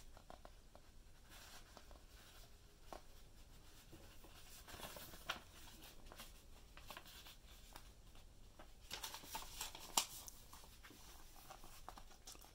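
Faint rustling and flicking of a paper instruction booklet's pages as they are handled and turned, louder about five seconds in and again around nine to ten seconds, ending in a sharp flick.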